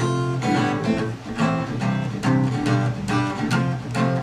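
Strummed acoustic guitar playing a rhythmic instrumental passage of a song.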